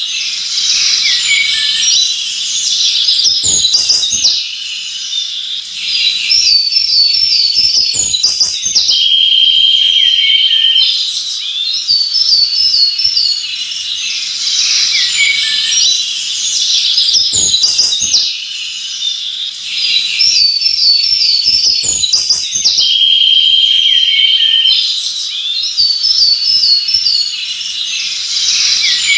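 Several forest birds chirping and whistling over one another, with a buzzy trill twice and a steady high hiss behind. A few brief knocks come through, and the same run of calls repeats about every 14 seconds, as a looped recording does.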